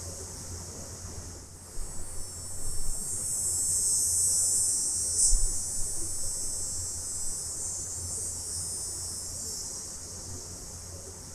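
Chorus of cicadas buzzing at night, a dense high-pitched drone that swells to its loudest about four to five seconds in and then slowly fades, over a low steady rumble.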